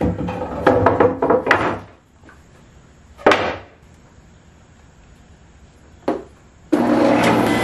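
Wooden boards being knocked and handled: a quick run of knocks, then two single knocks. Near the end a motorised tool starts up and runs with a steady whine.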